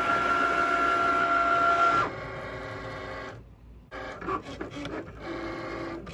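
Cricut Maker cutting machine starting a cut. Its motors give a loud, steady whine for about two seconds as the mat feeds and the blade carriage moves. Quieter whirring and clicks follow, with a brief pause in the middle.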